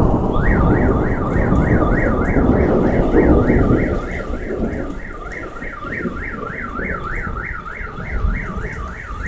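A car alarm wails, a tone sweeping up and down about three to four times a second, starting just after a thunderclap. The rumble of the thunder fades over the first few seconds, with rain falling throughout.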